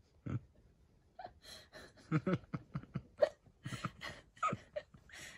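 A person's quiet, breathy, stifled laughter: a string of short huffs and giggles that starts about a second in.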